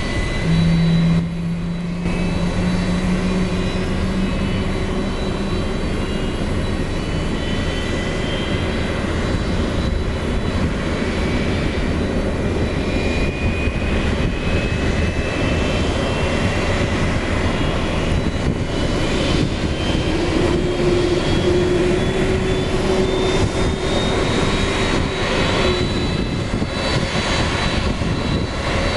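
Boeing 767-300 freighter's jet engine starting up during pushback: a thin whine climbs slowly and steadily in pitch over a constant low rumble of running aircraft machinery.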